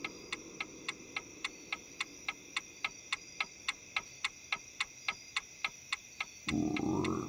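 Clock ticking steadily, about three to four ticks a second. Near the end a short growl rises in pitch.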